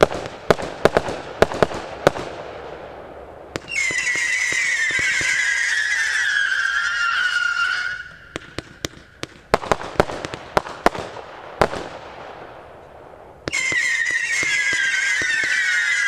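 Oriental Collection 'Earcatcher' firework going off: a quick run of sharp bangs and crackles, then a long whistle that slowly falls in pitch for about four seconds. The bangs and the falling whistle come round again, the second whistle starting near the end.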